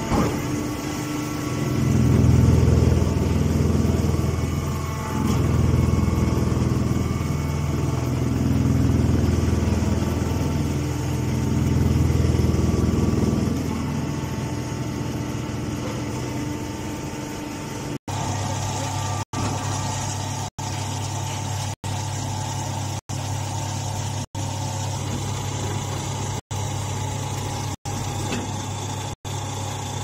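Hydraulic straw baler machinery running with a steady low motor hum that swells and eases every few seconds. About halfway through it changes to a steadier hum, cut by brief dropouts about once a second.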